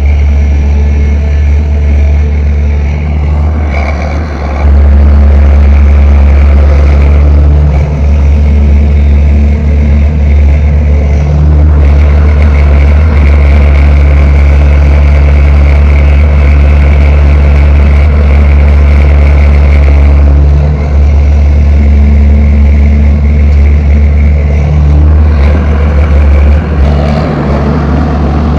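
Caterpillar 320 hydraulic excavator's diesel engine running with a steady low drone, getting louder about five seconds in as it works and easing briefly about twenty seconds in.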